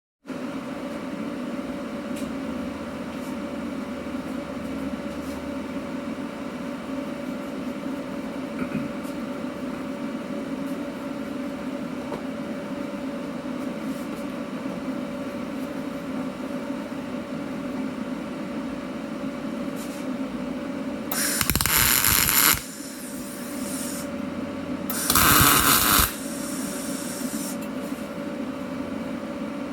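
Steady machine hum in a workshop, broken twice by short bursts of welding, each a second or so of loud arc crackle, a few seconds apart.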